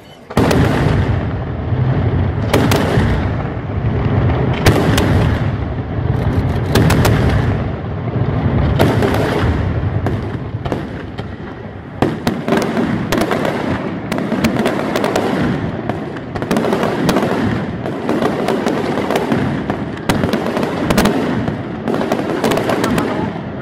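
Daytime fireworks display: a dense, continuous barrage of aerial shell bursts, bangs and crackling stars, starting suddenly just after a brief lull.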